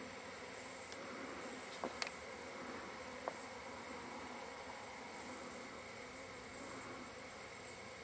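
Disturbed honeybees buzzing in a steady drone around their opened hive, a colony stirred up by being handled. A few faint clicks about two seconds in and again near three seconds.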